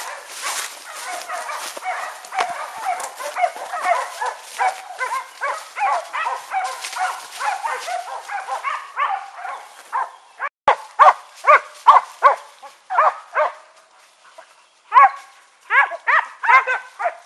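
Hunting dogs baying and barking in the undergrowth, several voices overlapping with brush rustling. After a brief break about ten seconds in, louder separate barks follow at two or three a second.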